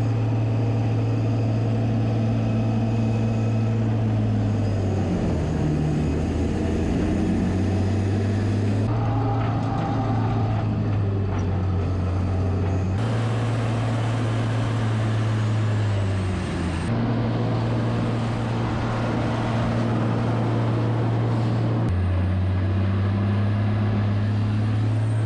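Heavy diesel machinery running steadily: a skid-steer loader carrying hay bales, and a Rotochopper hay grinder chopping hay. The deep engine hum jumps to a new pitch abruptly several times.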